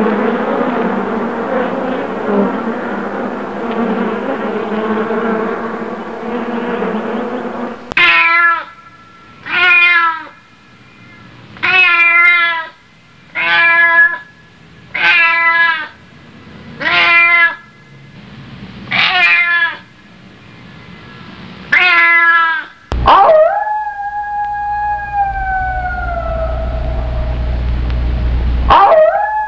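Bees buzzing steadily for the first eight seconds or so, then a stray cat yowling eight times in a row, each call about a second long. Near the end a wolf howls: one long call that jumps up and then slowly falls, with a second howl starting at the very end.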